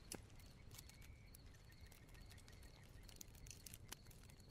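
Faint campfire crackling: scattered sharp pops and snaps from the burning wood over a low, soft rumble of the fire.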